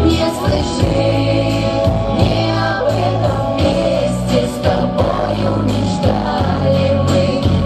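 Female vocal ensemble singing into microphones over amplified instrumental accompaniment with a steady beat.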